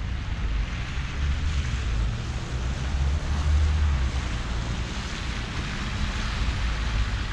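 Wind rumbling on the microphone over a steady hiss of city street noise.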